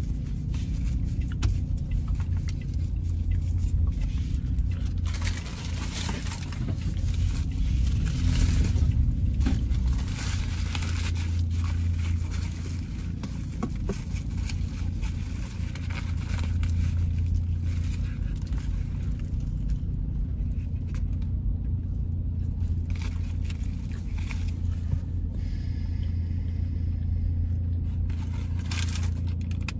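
Steady low road rumble inside a moving car's cabin, with paper and aluminium foil crinkling and rustling as a foil-wrapped burger is unwrapped. The wrapper noise is busiest in the first ten seconds and flares again near the end.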